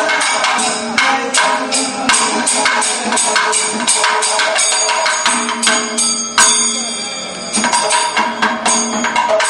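Kathakali percussion accompaniment: fast drumming with ringing cymbals. A little past six seconds in, one loud stroke is followed by about a second of ringing with no drumming, then the drumming starts again.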